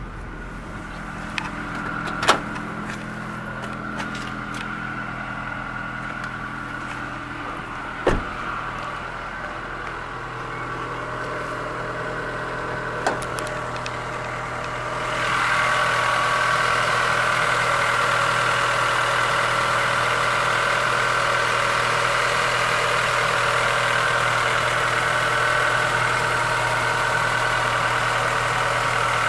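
Honda Odyssey engine idling steadily, with a few sharp knocks in the first half, the loudest about eight seconds in. About halfway through the engine sound grows louder and hissier and then holds steady, heard close to the open engine bay.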